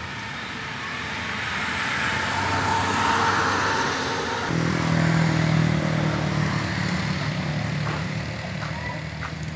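Road traffic passing close. A vehicle's noise swells to a peak about three seconds in, then changes abruptly to a steady, low engine hum that swells again and slowly fades as motor vehicles go by.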